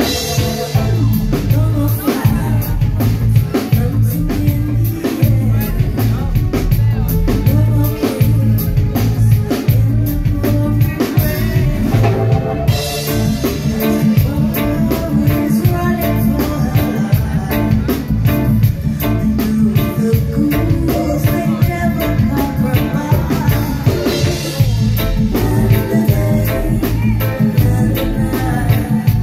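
Live reggae band playing, with a drum kit and keyboards, and a woman's lead vocal sung into a microphone over it.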